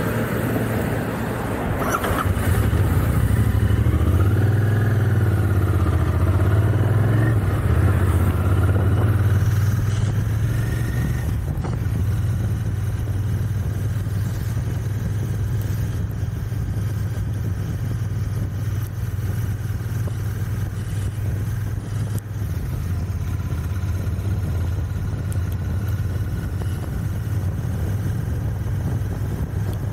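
Royal Enfield Continental GT 650's parallel-twin engine pulling away and accelerating through the gears, its pitch rising and falling over roughly the first ten seconds, then running steadily at cruising speed. The engine is new and being run in.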